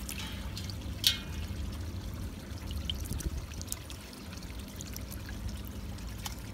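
Water splashing and dripping in a basin as a hand moves through it and lifts out, over a steady low hum, with one sharp click about a second in.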